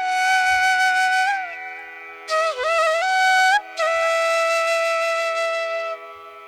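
Background instrumental music: a flute-like melody of long held notes that slide from one pitch to the next, over a steady low drone.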